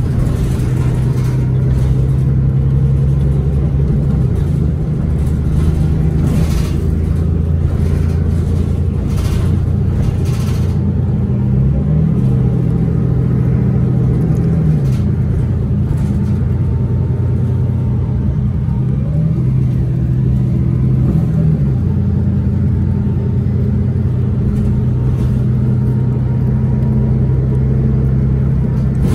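Cummins ISL9 diesel engine of a 2011 Orion VII 3G transit bus running under way with a steady low drone. Its pitch rises and falls twice, around the middle and again about two-thirds through.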